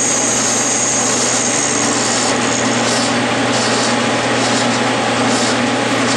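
Clausing metal lathe running, with a lathe tool taking a cut on a spinning mild steel taper fed by hand through the compound: a steady machine hum under the hiss of cutting. A higher hiss on top fades out about two seconds in.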